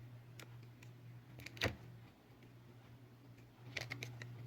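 Small clicks and taps from handling parts and tools during a phone battery swap, the sharpest one about one and a half seconds in and a few more near the end, over a steady low hum.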